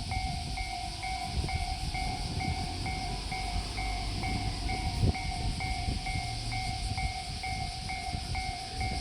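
Japanese railway level-crossing warning bell ringing steadily, about two chimes a second, over the low rumble of a train. A single knock sounds about five seconds in.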